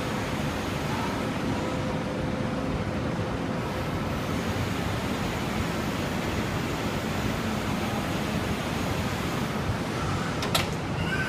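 Steady background noise with no clear source, and one sharp click about ten and a half seconds in.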